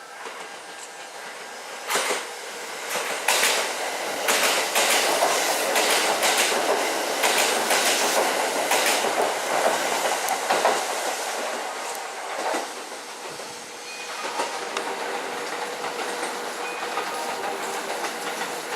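Kintetsu electric train passing through the station without stopping, its wheels clacking over the rail joints in quick repeated groups. The rumble builds, peaks with the clacking in the first half, then settles to a quieter steady run.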